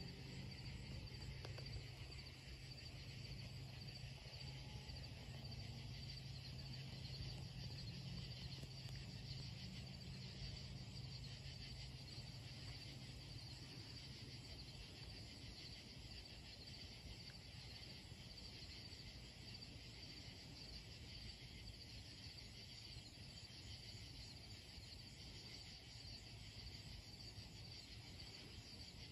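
Faint night chorus of crickets and other insects, a steady high trill. Underneath is a low steady hum that fades out about halfway through.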